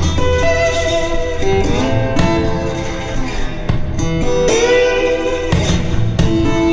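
Instrumental music led by guitar, with plucked notes over a steady low accompaniment.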